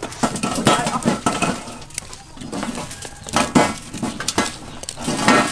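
Blocks of dry instant noodles clinking against a stainless steel tray and crunching as they are picked up and dropped into a pan of hot liquid: a string of irregular sharp clicks and clatters.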